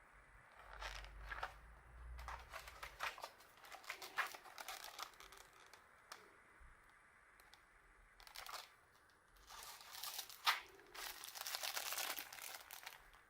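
Packaging being handled and opened, with irregular bouts of crinkling and tearing: the keycap set being unboxed.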